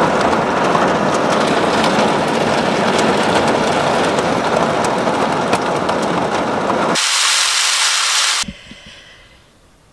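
Storm wind and heavy rain beating on a parked van, heard from inside: a loud, steady rush with many small taps of rain on the body and glass. About seven seconds in, the deep rumble cuts out, leaving only a hiss for over a second, and then the sound drops much quieter.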